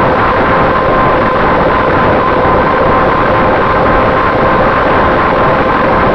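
Electric motor and propeller of a Finwing Traveler RC plane running at steady cruise, heard from a camera on board: a constant droning tone over a loud rush of air.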